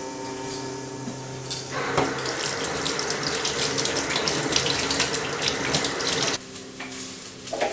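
Kitchen tap running into a sink: the water starts with a knock about a second and a half in, runs steadily, and is shut off abruptly near the end. A steady low hum sits underneath.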